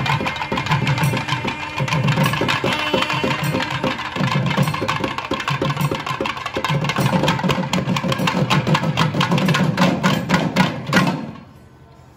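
Several thavil drums played together in a fast, dense rhythm of stick and finger strokes, which stop together abruptly about eleven seconds in.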